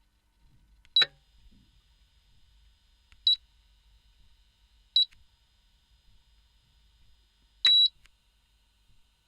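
Ceramic glass cooktop's touch controls beeping as the hob is switched on: four short high-pitched beeps a couple of seconds apart, each with a light click of the touch, the last one longer. A faint steady high tone stays on underneath after the first beep.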